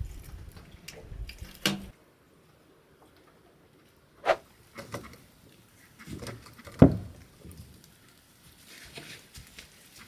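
Background music stops abruptly about two seconds in. After that come a few separate knocks, the loudest about seven seconds in, with faint rustling and handling noise between them.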